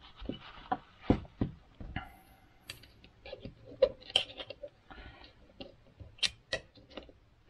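Small metal carburettor automatic-choke parts clicking and tapping as they are fitted together by hand and worked with a screwdriver, in irregular short clicks with a few sharper taps.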